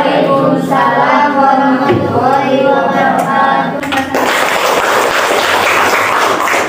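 Girls' voices chanting a recitation together, held and sung rather than spoken, typical of reciting the prayers of salat. About four seconds in the voices stop and the class breaks into applause.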